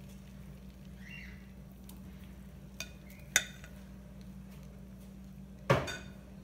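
Egg mixture frying in a buttered nonstick pan, with a faint sizzle over a steady low hum. A sharp clink comes about three and a half seconds in, and a louder knock of kitchenware near the end.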